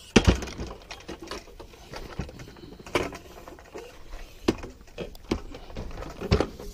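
Hands handling a long telescopic decoy pole: a string of irregular clicks and knocks, the loudest about a quarter second in.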